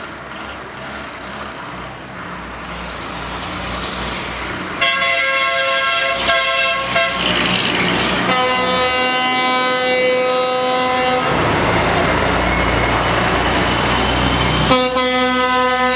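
Horns of heavy trucks sounding in long steady blasts as the trucks drive past close by, their engines rumbling underneath. A blast of about two seconds comes about five seconds in, a longer one of about three seconds follows around eight seconds, and another starts near the end.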